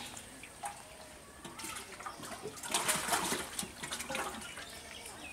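Water sloshing and splashing in a metal pot in a few irregular bursts as hands work in it.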